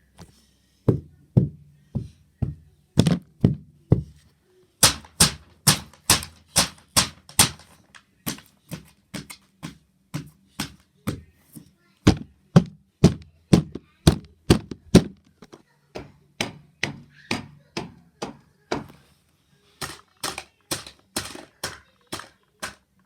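A long run of sharp knocking or tapping hits, about two to three a second, with two brief pauses.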